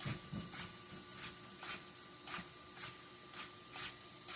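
Small RC hobby servos whirring in short, sharp bursts, about two a second, as the steering is flicked back and forth, both servos driven together from one channel through a Y connector. A faint steady electronic whine sits underneath.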